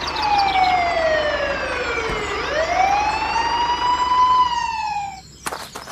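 A siren wailing: one long tone that falls slowly for about two seconds, then rises again and fades out. A quick run of clicks and knocks follows near the end.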